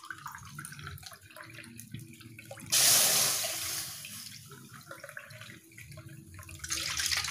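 Water poured from a steel cup into a wide metal kadai, splashing onto the bottom of the pan. A first pour starts about three seconds in and tails off; a second pour comes near the end.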